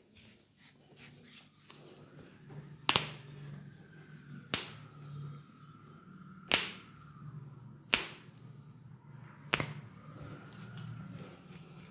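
Finger joints cracking as a masseur pulls a client's fingers one at a time: five sharp single cracks, roughly one every one and a half to two seconds.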